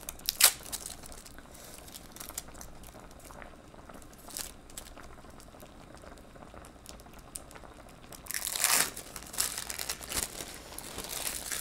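Plastic wrapping crinkling as individually wrapped cheese slices are unwrapped, with a sharp click near the start and the loudest crinkling about eight to nine and a half seconds in.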